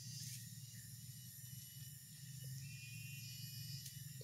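Faint outdoor ambience: a steady high hiss with thin, high tones coming and going, over a low steady hum.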